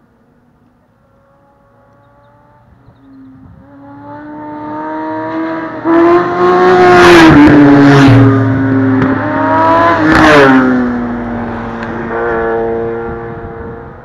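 Motorcycle engine accelerating hard past the roadside, its note climbing and dropping twice as it revs through the gears. It builds up over a few seconds, is loudest in the middle, then fades away.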